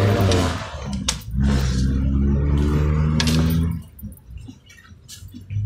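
A man humming a low, steady note, held for over two seconds before it stops, with a few sharp clicks from handling.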